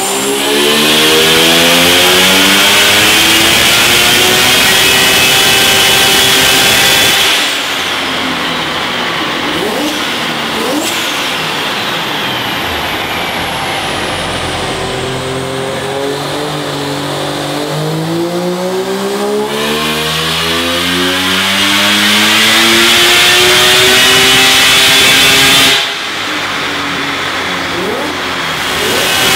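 Turbocharged Mazda 20B three-rotor engine in a Mazda RX-8 making full-throttle pulls on a chassis dyno. The revs climb for about seven seconds, drop away as the throttle closes, climb again in a second long pull that cuts off a few seconds before the end, and start rising once more near the end.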